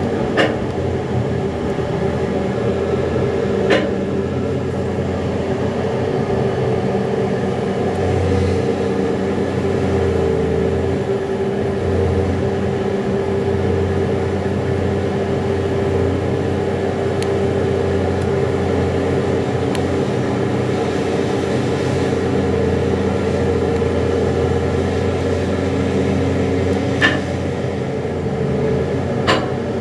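Liebherr R 9250 hydraulic mining excavator running steadily under load, a constant engine and hydraulic drone with a steady hum, broken by a few short sharp clicks.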